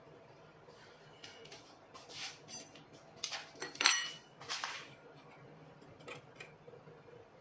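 Irregular light metallic clinks and scrapes of a thin steel saw blade and metal tools being handled, the loudest, just before four seconds in, with a brief ring.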